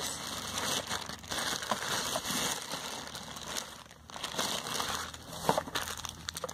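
Clear plastic bag crinkling as it is handled, with a short lull about four seconds in.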